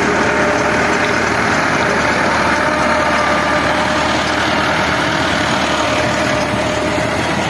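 Massey Ferguson 385 tractor's four-cylinder diesel engine running steadily while driving a rear-mounted rotavator through the soil.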